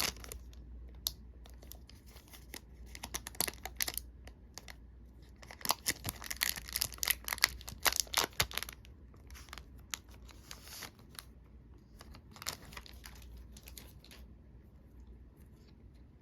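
Foil wrapper of a Magic: The Gathering booster pack being torn open and crinkled, in several bursts of crackling with short pauses between.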